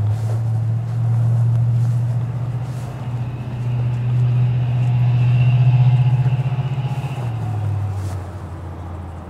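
Engine of a passing motor vehicle: a low steady hum that grows louder for several seconds, then drops a little in pitch and fades as it goes by.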